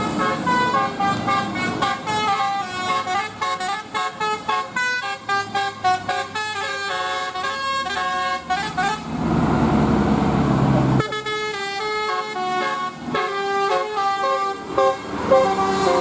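A bus's telolet basuri musical air horn playing a fast tune of short notes that jump in pitch. About nine seconds in the tune breaks off for about two seconds of loud rushing noise, then resumes.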